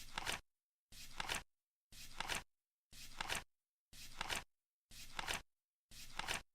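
Flip clock flapping over once a second, seven times: each flip is a short rustle that ends in a sharp double clack, with silence between flips.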